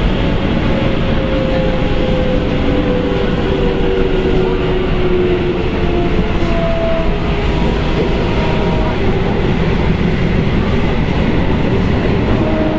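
Sendai Subway Namboku Line 1000 series train running, heard from inside the car: a steady loud rumble of wheels on rail and motor noise, with a motor whine that drops slowly in pitch over the first half.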